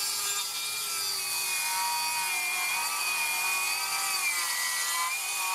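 Makita 40V XGT cordless circular saw with a 235 mm blade cutting through a timber plank: a steady high whine whose pitch sags slightly twice as the blade takes the load.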